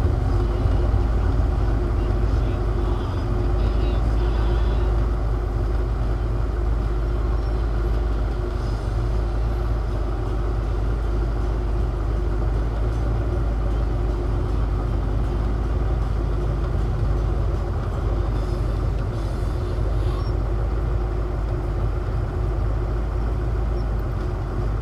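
Car engine idling steadily, a continuous low rumble.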